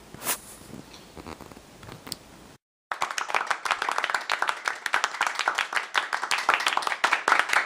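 Applause: many hands clapping, cutting in suddenly about three seconds in after a brief dead silence, with a faint knock and rustle before it.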